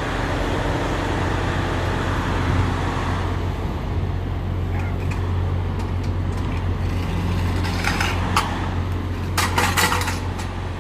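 Semi-truck's diesel engine running steadily, heard as a low drone from inside the cab, with a broad hiss that fades about three seconds in and a few short clicks and rattles near the end.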